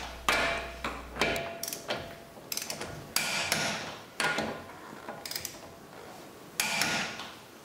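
Click-type torque wrench on a wheel's lug nuts: a series of sharp clicks and clanks about a second apart, the wrench clicking as each nut reaches its set torque of 100 to 110 ft-lb.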